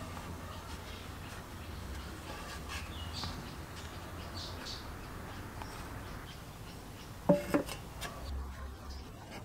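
Empty metal tin can set down on a plywood tabletop about seven seconds in: two quick clanks with a brief metallic ring. Faint bird chirps and a low steady hum sit underneath.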